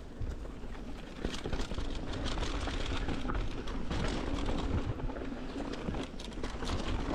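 Mountain bike riding down a dirt forest trail: tyres rolling over dirt with many small rattles, clicks and knocks from the bike, over a steady low rumble of wind noise on the camera.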